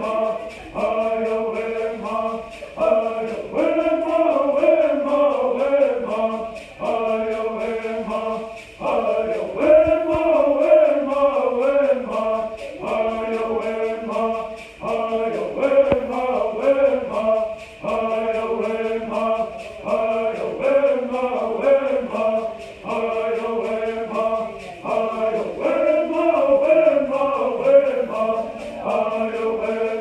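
Group of men singing Native American bird songs in unison, a chanted melody repeated in short phrases with brief breaks, over a steady shaking beat of gourd rattles.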